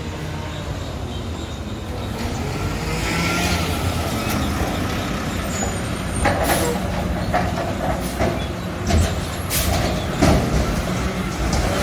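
Mack garbage truck with a McNeilus front-loader body, its diesel engine running steadily, with a hiss about three seconds in and several metal clanks and bangs in the second half.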